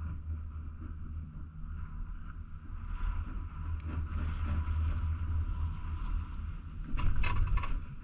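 Chairlift ride: a steady low rumble from the moving chair, then a loud clattering burst near the end as the chair's cable grip rolls over the sheave wheels of a lift tower.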